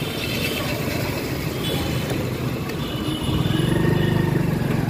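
Motorcycle running along a busy town street, with road traffic around it; the low engine rumble grows louder about three seconds in.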